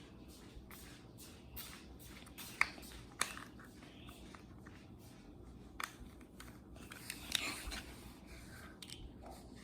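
Small plastic toy pieces being handled and pressed together: a few sharp clicks spaced a second or more apart and a brief scratchy rustle a little past the middle.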